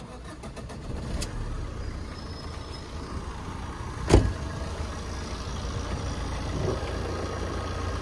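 Fiat Punto's 1.3 Multijet diesel engine being started, a brief rapid clatter as it cranks and catches, then idling steadily. About four seconds in there is a single loud thump, the car door being shut.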